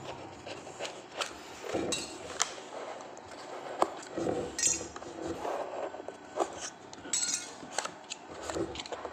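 Small clicks, taps and brief scrapes of hands working at the centre of a bass speaker cone, pulling the centering strip out of the newly glued voice coil.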